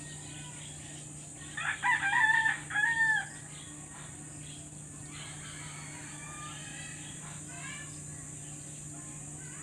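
A rooster crows once, about two seconds in, the crow ending on a falling note. Fainter bird calls follow later, over a steady low background hum.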